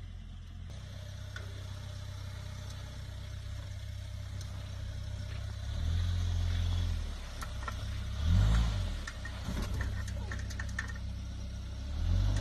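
Daihatsu Terios 4x4 engine pulling the car through soft sand and mud ruts, rising in revs a few times (about six, eight and twelve seconds in). Scattered clicks and knocks between the rev rises.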